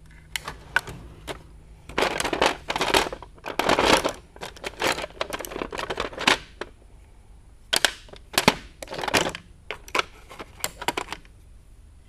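A steel tool chest drawer opened and screwdrivers clattering and clinking against each other as they are rummaged through, in irregular bursts of clicks that stop about a second before the end.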